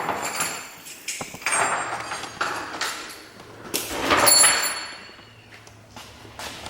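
Metal engine parts and hand tools being handled: a run of scrapes, knocks and brief metallic rings during an engine teardown, the loudest clatter about four seconds in.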